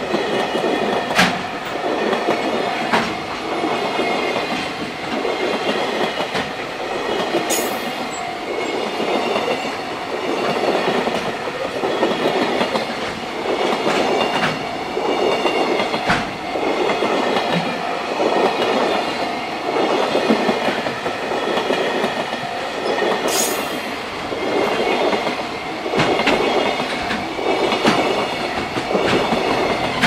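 JR Freight container train's flat wagons passing close by at speed, their wheels clacking over the rail joints in a steady repeating rhythm.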